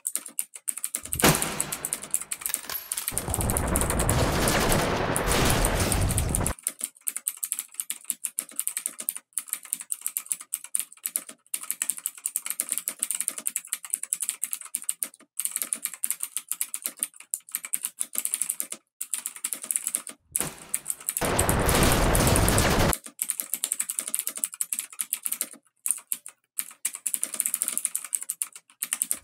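Experimental noise composition: a dense, irregular stream of rapid clicks and crackles. It is broken by two loud bursts of rushing noise, one about a second in lasting some five seconds, and a shorter one about twenty seconds in.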